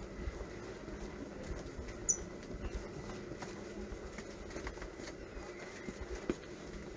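Street-market ambience: a steady low hum under scattered footsteps and small clicks and taps, with one brief high squeak about two seconds in.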